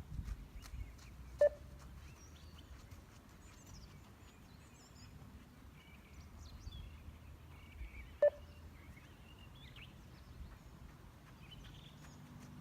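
Two short beeps from a 20 m beep-test recording, about seven seconds apart, each marking the end of a shuttle at level 5. Birds chirp softly in the background.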